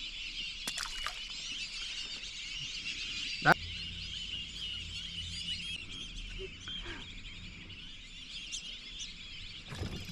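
A dense, steady chorus of many birds calling together. About three and a half seconds in, a short, sharp sound rises quickly in pitch.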